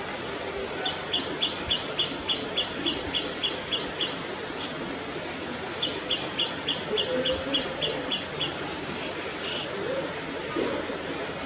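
A songbird singing a fast series of repeated high two-note phrases, about four a second for some three seconds, then a second identical run a couple of seconds later. Steady low background noise runs beneath.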